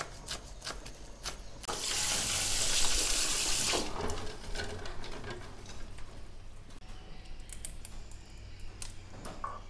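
Knife chopping on a wooden cutting board, then a tap running water into a metal pot of boiled duck eggs for about two seconds, the loudest sound. Then faint clicks and crackles of eggshells being cracked and peeled by hand.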